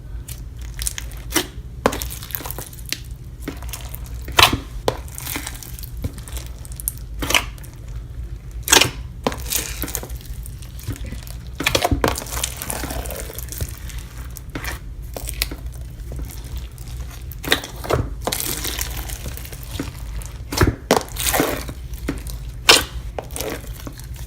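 Clear slime with square beads in it being squeezed and stretched by hand: irregular sharp clicks, pops and crackles, a few of them louder than the rest.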